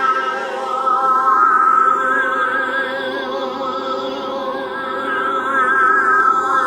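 Music of sustained, choir-like voices holding long wavering notes, with a slow sweep that rises and then falls through the sound.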